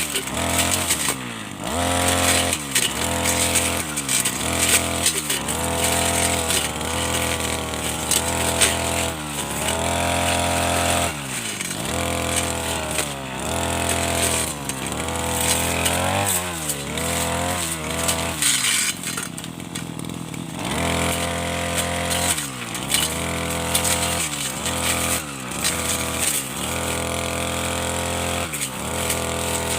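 Petrol brush cutter with a cutting blade, its engine revving up and down over and over as it cuts through tall senduduk shrubs. About two-thirds of the way through it eases back to idle for a moment before revving again.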